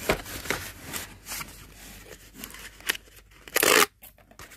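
Small cardboard boxes being handled and rubbed against each other inside a cardboard shipping carton: scattered light scuffs and taps, with one louder cardboard scrape about three and a half seconds in.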